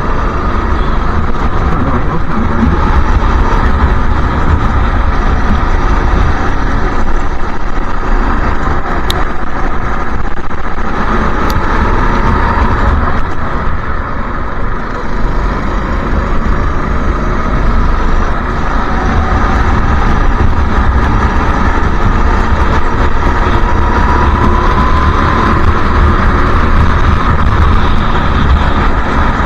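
Racing go-kart engines at full race pace heard from on board a kart in a close pack, the engine note rising and falling through the corners over a heavy low rumble. Two brief clicks sound about nine and eleven seconds in.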